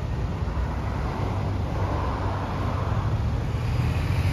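Road traffic: a steady low rumble of cars moving along the street, with a swell of tyre noise about halfway through as one passes closer.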